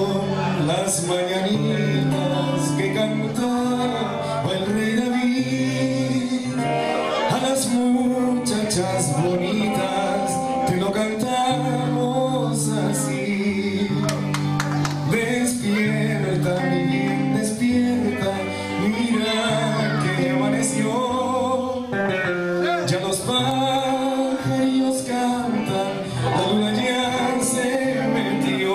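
Music playing: an upbeat song with a man singing over guitar and a steady bass line.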